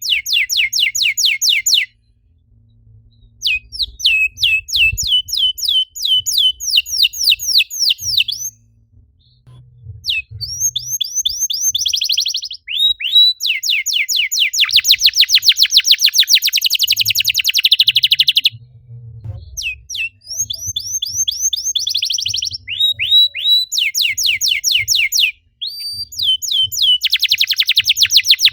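Canary singing in long trilled phrases, each a rapid run of about ten repeated notes a second lasting a few seconds, with brief pauses between phrases.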